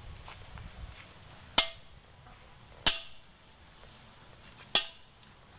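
Metal cooking pot struck three times, each sharp hit ringing briefly with a metallic tone.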